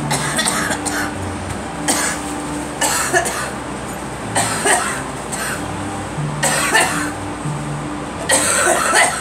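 A girl coughing again and again in short bouts, about six through these seconds, over background music with steady low notes.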